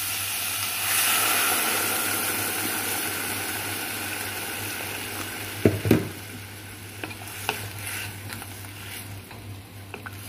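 Water poured into a hot pot of fried chicken and carrots, hissing and sizzling loudly about a second in, then slowly dying down as the broth starts to bubble. Two sharp knocks come about six seconds in, with lighter clicks of a spatula later.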